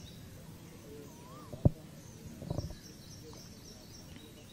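Faint outdoor ambience on an open live microphone, with birds chirping in the background. A single sharp click comes about a second and a half in, and a couple of soft knocks follow a second later.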